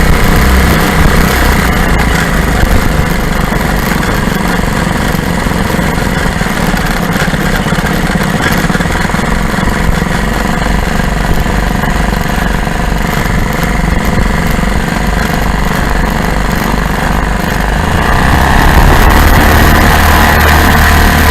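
Lazair ultralight's twin small two-stroke engines running steadily, growing louder near the end.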